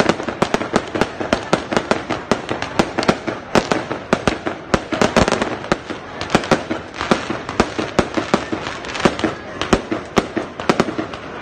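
Fireworks going off in a rapid, continuous string of sharp pops and bangs, several a second, with crackling in between.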